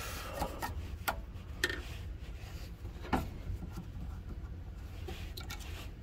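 A bristle brush sweeping metal key shavings off the clamp of a key-cutting machine, a scratchy rubbing, with a few light clicks of handling in between.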